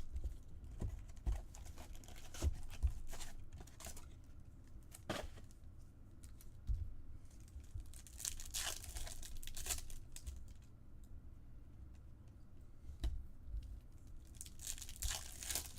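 A sealed trading-card box and its packs being torn open by hand: wrappers tearing and crinkling in two longer bursts, one about halfway through and one near the end. Light clicks of cardboard and cards being handled come in between.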